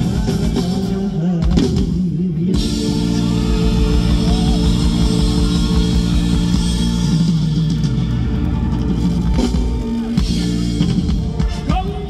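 Live rock band with drums, guitar and a singer performing through a loud concert sound system, recorded from the audience; the music thins out briefly about two seconds in, then comes back with sustained chords under the vocal.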